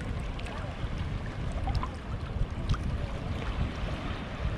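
Wind buffeting the microphone over choppy, flowing water, a steady uneven rumble with a rushing wash on top.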